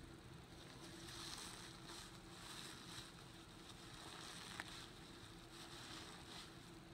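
Faint scratchy rustling of a scrub pad worked back and forth over a wet, powder-covered carpet mat, in uneven strokes. A single small click sounds about four and a half seconds in.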